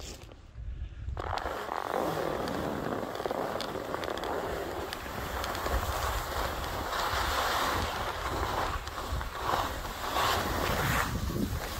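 Skis sliding and scraping over snow, with wind buffeting the microphone; the rushing starts abruptly about a second in and swells and eases as the turns go.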